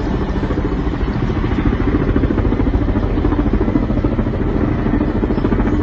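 Water-bombing helicopter's rotor beating steadily: a fast, even chop over a low rumble.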